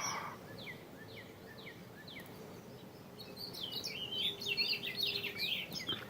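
A bird calling: a string of short, falling chip notes about two or three a second, then from about three seconds in a rapid, jumbled burst of chirps that is the loudest part.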